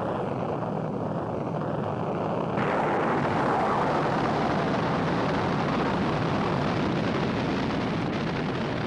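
Rocket engine noise at launch: a steady, dense rushing rumble that becomes brighter and a little louder about two and a half seconds in.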